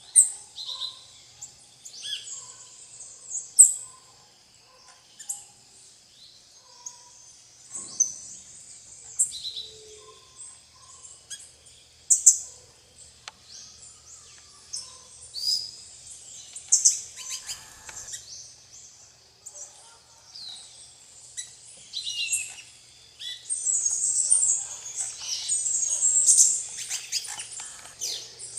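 Plain parakeets (Brotogeris tirica) and other small birds calling at a feeding spot: many short, high chirps and calls with a few lower notes, thickening into a dense chatter near the end.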